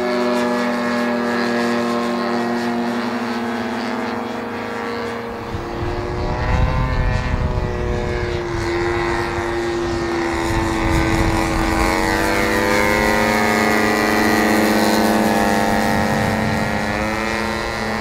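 Radio-control Precedent Stampe scale biplane flying overhead, its propeller motor giving a steady drone whose pitch rises and falls from about six seconds in as it passes and changes throttle. A low rumble joins about five seconds in.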